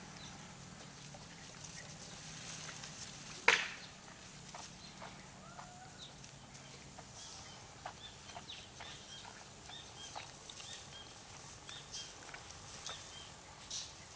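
Many short, high chirps of small birds calling over a low steady hum, with one sharp knock about three and a half seconds in.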